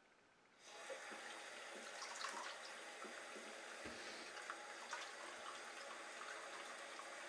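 Bathroom sink faucet turned on about half a second in, then water running steadily into the basin, with small splashes as hands go under the stream.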